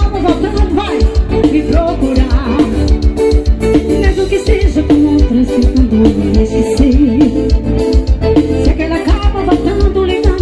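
Forró music played loud over a sound system: a singer over a steady, driving beat.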